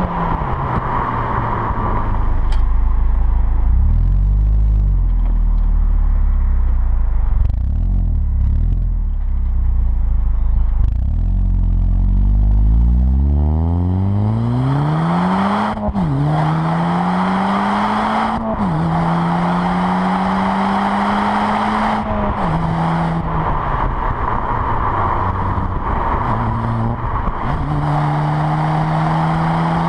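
Audi S3's turbocharged four-cylinder engine heard at its standard quad exhaust tips while driving, with wind and road noise throughout. A deep low drone at first, then the engine note climbs under acceleration, dropping sharply at two quick upshifts about halfway through, and settles into a steady note at cruise.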